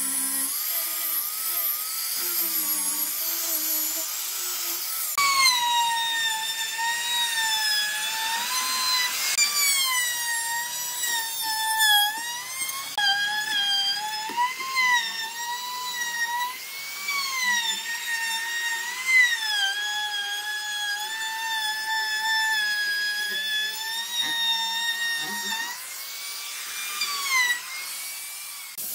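Electric hand-held power tools sanding wood, with a high-pitched motor whine. An angle grinder with a sanding disc runs at first. From about five seconds in, a small high-speed rotary tool with a sanding wheel takes over, and its whine dips and rises as it is pressed into the wood and eased off.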